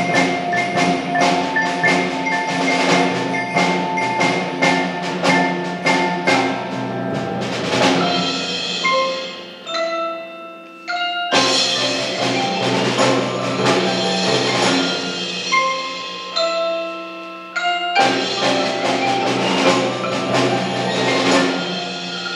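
School percussion ensemble playing, with mallet keyboards (marimba, xylophone, glockenspiel) and chimes ringing over drums and wood block. Dense repeated strikes give way about eight seconds in to a few ringing notes that fade, then the full ensemble comes back in suddenly; the texture thins once more near the two-thirds mark before everyone enters again.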